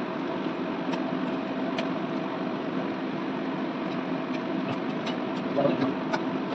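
A steady machine-like kitchen hum, with a few light knocks of a knife on a chopping board as a block of paneer is sliced, a little busier near the end.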